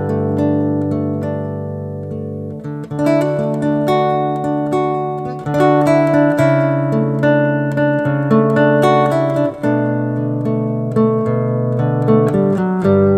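Background music played on acoustic guitar, plucked and strummed chords changing every second or so.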